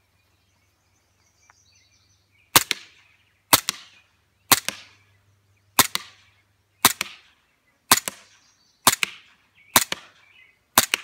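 Smith & Wesson M&P9 airsoft pistol firing .20 g BBs: nine sharp shots spaced about a second apart, starting about two and a half seconds in.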